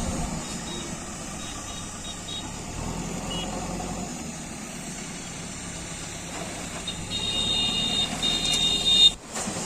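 Diesel engine of heavy construction machinery running steadily. Near the end a high electronic warning tone sounds for about two seconds, like a vehicle alarm or reversing beeper, and then the sound cuts off abruptly.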